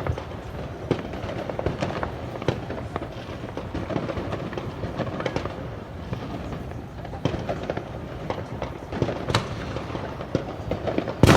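Fireworks going off: scattered pops and cracks over a steady outdoor background, with one much louder bang near the end.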